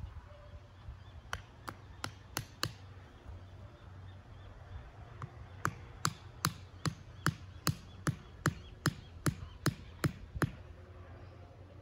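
Hammer striking the top of a wooden stake, driving it into the ground: a few quick blows, a pause, then a steady run of about a dozen blows at about two and a half a second.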